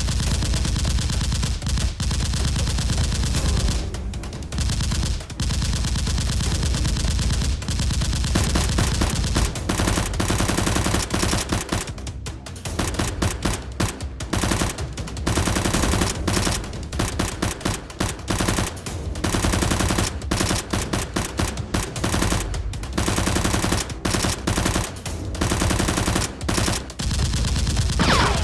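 Long bursts of rapid automatic gunfire with a few short pauses, a machine-gun effect laid over a Nerf blaster battle.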